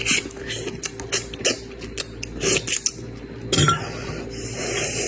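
Chopsticks and utensils clicking against bowls and dishes in a quick series of light taps, with a louder knock about three and a half seconds in, then a hissing noise near the end.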